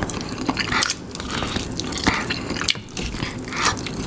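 Chewing and mouth sounds of people eating fried chicken coated in spicy sauce: irregular small clicks and smacks, with no steady sound underneath.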